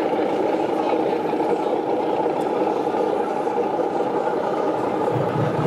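Steady hubbub of a busy exhibition hall: crowd chatter and general running noise blended into a constant murmur, with a brief low hum near the end.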